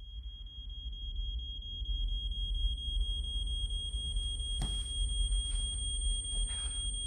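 A steady high-pitched ringing tone, the ear-ringing effect after a firecracker blast, over a low rumble. A single faint knock comes about four and a half seconds in.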